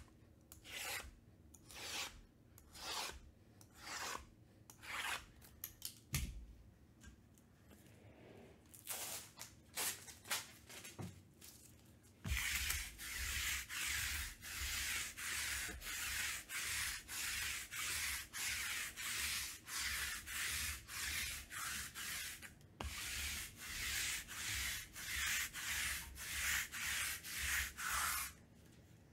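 Rubbing by hand against a surface. It starts as separate slow strokes about one a second. From about twelve seconds in it turns into a faster, steady back-and-forth rubbing of about two strokes a second, which stops shortly before the end.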